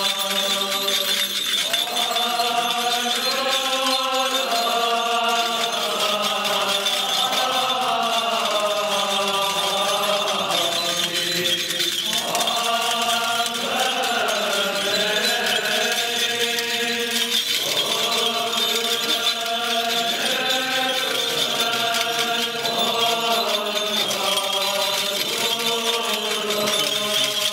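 Armenian church liturgical chant: voices singing a slow hymn together in long, drawn-out phrases, with a short break about twelve seconds in.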